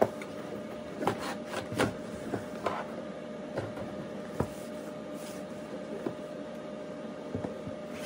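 Cardboard boxes being handled: a shipping box's flaps opened and a laptop's retail box taken out and moved about on a stone countertop, giving a string of short knocks and rustles, the loudest at the very start. A steady faint hum runs underneath.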